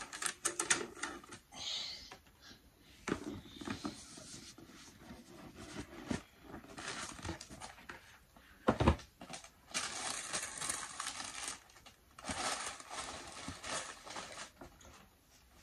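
Tissue paper rustling and crinkling as a cardboard shoe box is opened and unwrapped, with small taps and knocks from handling the box, and one louder knock a little under nine seconds in.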